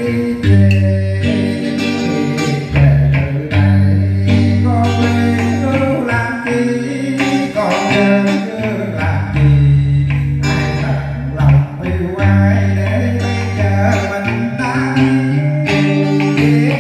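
Live accompaniment for a Vietnamese cải lương excerpt: a plucked electric guitar and other string instruments play over held bass notes, with a voice singing along into a microphone.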